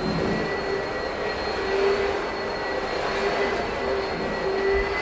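Electric table fans running: a steady whir of moving air with a steady motor hum and a faint high whine held throughout.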